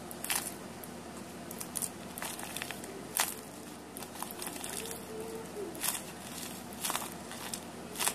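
Homemade paper squishy, a paper chip-bag shape, crinkling and crackling as it is squeezed and crumpled in the hands: scattered sharp crinkles, a few louder ones, over a steady low hum.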